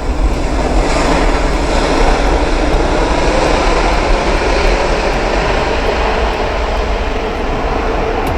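Loud, steady jet engine noise from an airliner close by, swelling about a second in and holding.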